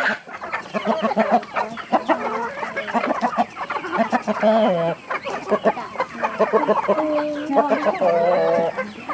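A flock of free-range native chickens clucking and calling over one another in many short, overlapping calls.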